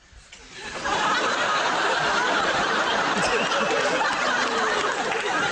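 Studio audience laughing, swelling up out of a brief hush within the first second and then holding steady.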